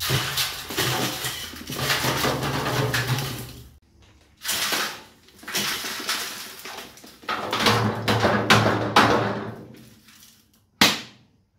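Loose soil poured and shaken out of a metal canister into a galvanised steel bin, rattling and rushing against the metal in four spells with short pauses. A single sharp knock comes near the end.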